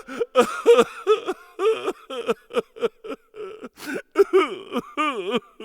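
People's voices talking with no clear words, over a steady faint hum.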